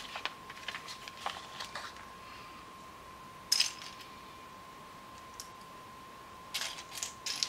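Loose plastic Lego pieces clicking and clattering as a hand rummages through the pile and fits pieces together: scattered light clicks, a short louder clatter about halfway through, and another run of clicks near the end. A faint steady high tone sits underneath.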